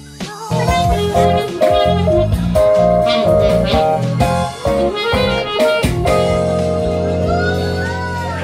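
Instrumental music: a melody of changing notes over a steady bass line, with notes that bend and glide near the end.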